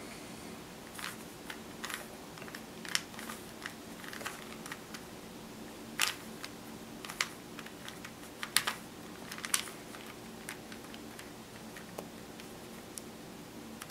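Plastic Rubik's Cube layers being twisted by hand, giving irregular clicks and clacks as the turns snap into place.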